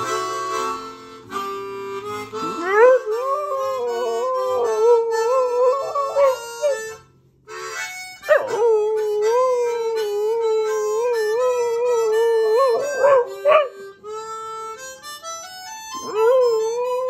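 A dog howling along to harmonica playing: long wavering howls that rise and hold, break off briefly about seven seconds in, then start again.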